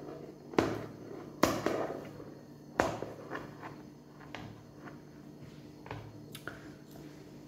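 Kitchen scissors cutting pizza over a metal baking tray: sharp snipping clicks, three louder ones in the first three seconds, then fainter ones, over a faint steady hum.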